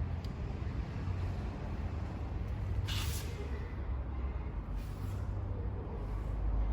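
Kawasaki Ninja H2 SX SE+'s supercharged inline-four engine idling steadily through a Trick Star aftermarket silencer, with a short hiss about three seconds in.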